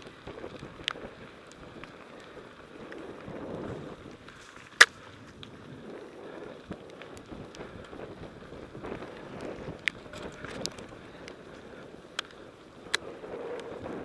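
Mountain bike ridden fast over a gravel trail: steady tyre and wind noise, broken by sharp clicks and rattles from the bike over bumps. The loudest click comes about five seconds in.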